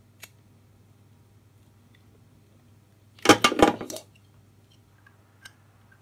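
A short clatter of metal hand tools: several sharp clinks bunched within under a second, about three seconds in, with one faint click just after the start.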